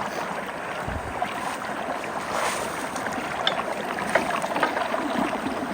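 Steady rush of flood water pouring into a partly clogged road culvert, with a few small splashes and knocks as a hand gropes in the water for a stuck stick.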